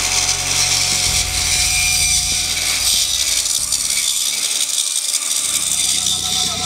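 Jet JWBS-14DXPRO 14-inch bandsaw running, its stock blade cutting through a thick wooden block with a steady hiss.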